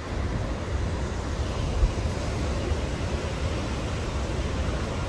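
Wind buffeting the microphone with a deep, uneven rumble, over the steady wash of heavy surf breaking on the rocks below. One brief thump about two seconds in.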